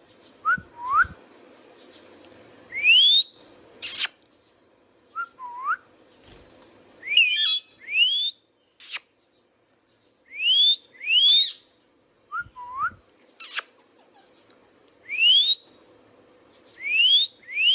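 Indian ringneck parrot calling: repeated short rising whistles mixed with sharp, high squawks and a few lower swooping whistles, coming every second or two.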